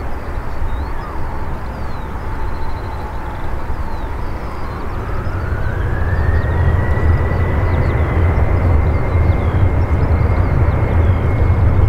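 Boeing 737-800's CFM56-7B turbofans spooling up for the takeoff roll. A steady whine climbs in pitch about five seconds in and settles higher, while the deep engine rumble grows louder as the jet accelerates down the runway.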